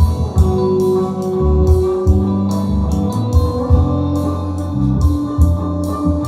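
A rock/blues track with guitar, bass and drums played back through a QSC K8 powered loudspeaker, with cymbal strokes about twice a second over a heavy bass line.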